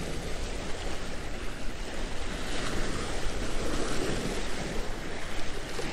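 Waves breaking and washing against the jetty's rocks, with wind on the microphone.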